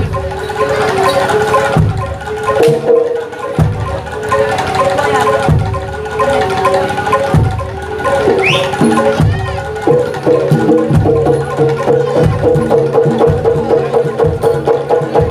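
Live kuda lumping (jaranan) ensemble music: struck metallophones ringing a repeating melody over hand-drum strokes. About ten seconds in, the drumming settles into a fast steady beat.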